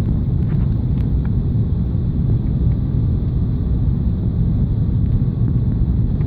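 Steady low rumble inside the cabin of an Airbus A380, the engine and airflow noise heard from a window seat.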